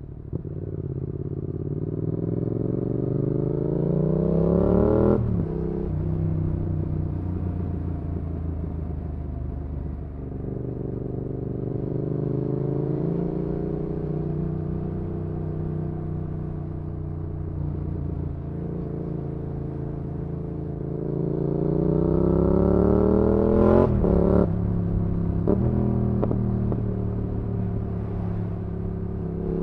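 Yamaha XSR700's parallel-twin engine through an IXRACE MKII aftermarket exhaust, on the move. It revs up under acceleration, drops sharply at an upshift about five seconds in, holds steady, then pulls up again and shifts near the end with a couple of short sharp cracks.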